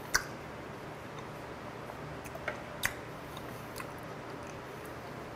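Close-miked chewing of a mouthful of food, with a few sharp mouth clicks and smacks: one near the start and a small cluster about two to three seconds in.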